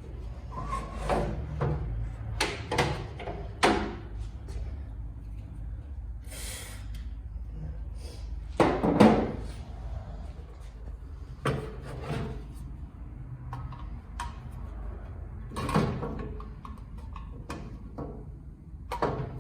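Intermittent knocks, clunks and rattles of things being handled and set down, with one heavier thump about nine seconds in and a short hiss about six and a half seconds in.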